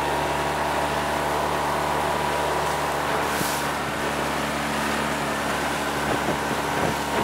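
Tohatsu outboard motor on a Sea Eagle 12.6 SR inflatable boat, running steadily at cruising speed and heard from on board, with a constant hiss of water and air under it.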